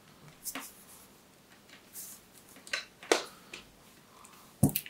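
Scattered light clicks and taps of hands handling wires and small parts on a rubbery work mat, with two louder knocks, about three seconds in and near the end.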